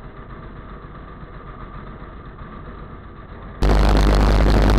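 Ultralight plane's propeller engine idling steadily, muffled as heard from inside the cockpit. About three and a half seconds in, the sound cuts abruptly to a much louder, fuller steady noise.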